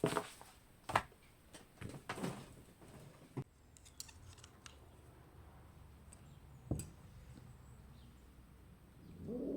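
A series of sharp clicks and knocks, about half a dozen in the first three and a half seconds and one more near seven seconds, over a faint low hum.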